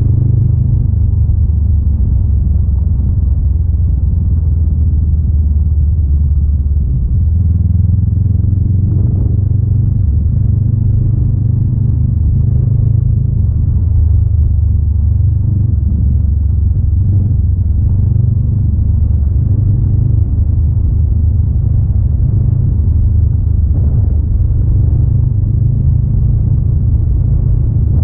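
Honda Rebel 500's parallel-twin engine running steadily as the motorcycle rides along a dirt road, heard as a low, even drone, with a slight change in the note about seven seconds in.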